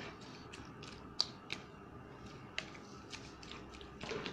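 A hand mashing and kneading cut raw mango mixture in a plastic bowl: faint wet handling noise with scattered sharp clicks, three of them standing out a little after one second, half a second later and near the middle.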